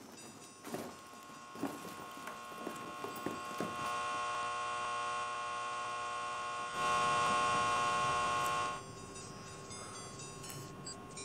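A steady electrical hum with many overtones, with a few faint clicks over the first few seconds. It swells, is loudest for about two seconds a little past the middle, then drops back to a lower hum.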